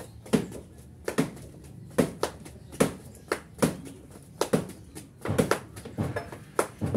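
Rubber flip-flops slapping and knocking on a concrete step as a person kicks and steps in place, in an uneven rhythm of about one to two sharp slaps a second, some in quick pairs.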